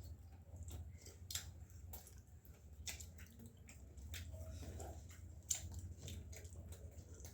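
Faint chewing and wet mouth clicks of someone eating, close to the microphone, over a low steady hum.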